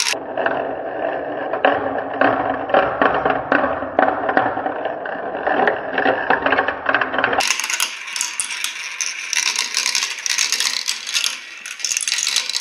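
Many small plastic balls rolling and clattering through a Kumon Kumi Kumi Slope plastic marble run, spinning round a funnel and dropping through tubes, as a dense, rapid rattle of clicks. About seven seconds in the rattle turns sharper and brighter.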